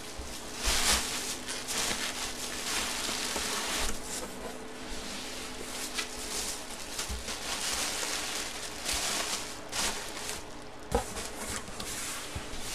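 Rustling and handling noise at a tabletop, with a few light clicks and knocks as a pair of dice is shaken and thrown down.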